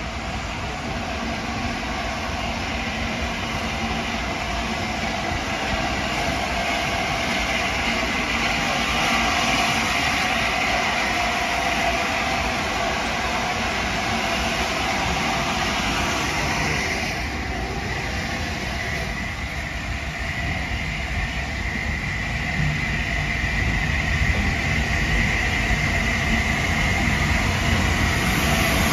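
Steam-hauled train double-headed by LNER A4 60007 Sir Nigel Gresley and BR Standard 70000 Britannia, heard close by as a steady rushing rail noise that grows louder over the last few seconds.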